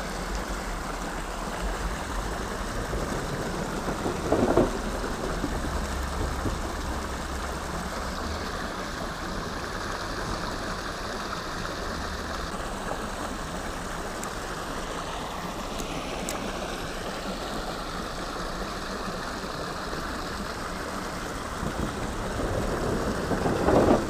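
Steady rush of creek water spilling over a small concrete outflow into the pool, with a low rumble partway through from someone riding across a wooden footbridge, which sounds like thunder.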